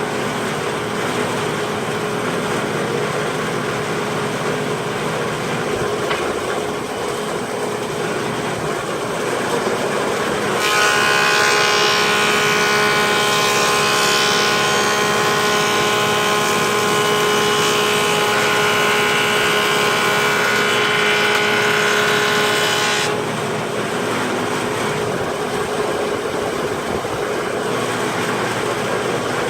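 Craftsman 306 planer moulder (Foley Belsaw 910/912) running with its 5 hp single-phase motor and three-knife cutter head, humming steadily. About ten seconds in, a board starts feeding through and the planing cut makes it louder and higher-pitched. The cut ends suddenly near 23 seconds, and the machine goes back to running free.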